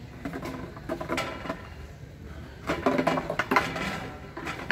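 Metal cage clattering and rattling as a monkey moves about on its steel-bar floor and against the bars: two spells of sharp clanks, the second louder, some ringing briefly.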